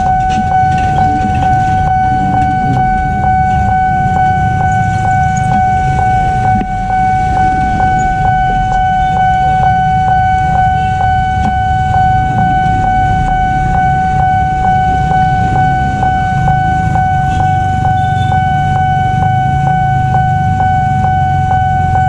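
Railway level-crossing warning bell ringing continuously, a steady ringing tone struck about twice a second, warning that a train is coming. Waiting vehicles' engines run underneath it as a low rumble.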